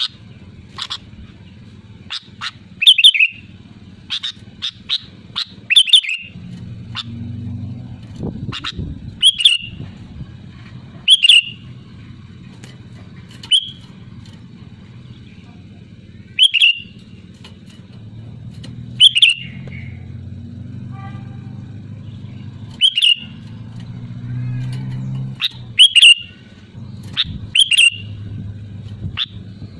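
Sooty-headed bulbul calling: short, sharp chirps, single or in quick pairs and triplets, every one to two seconds, over a low background hum.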